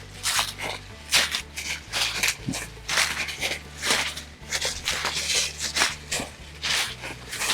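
Footsteps walking through woodland ground cover, a short rustling crunch at each step, about two steps a second.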